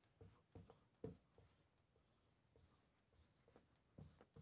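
Faint squeaks and scratches of a whiteboard marker writing numbers on a whiteboard: short strokes, several in the first second and a half, fewer after, and a few more near the end.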